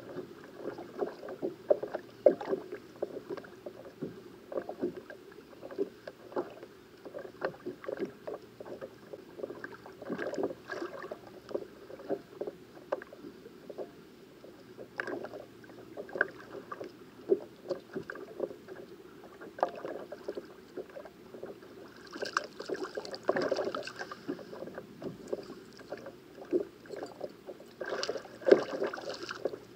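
Small waves lapping and slapping against a plastic kayak hull, a quick, irregular patter of splashes and knocks.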